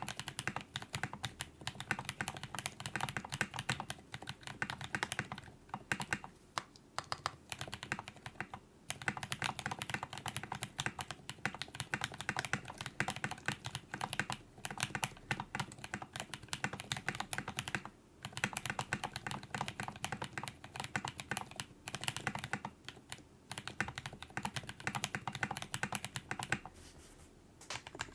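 Fast continuous typing on a mechanical keyboard with lubed half-silent switches (Gateron milky yellow housings and springs with Cherry silent black stems) on an FR4 plate with PBT keycaps: dense clacks from the keys bottoming out, with only brief pauses.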